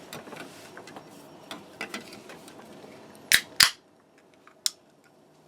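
Small scattered clicks and handling noise, then two sharp clacks about a third of a second apart a little past three seconds in, with one fainter click about a second later.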